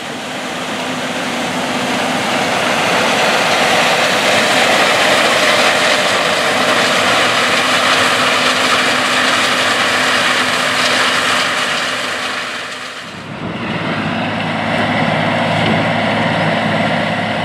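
Large farm machinery running in the field: a steady, loud engine and machine noise. About thirteen seconds in, the sound dips and changes to a different machine with a lower, steadier engine note.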